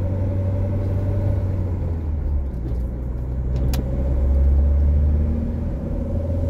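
Car engine and road noise heard from inside the cabin while driving: a steady low rumble that grows a little louder about four seconds in. A single sharp click comes a little before that.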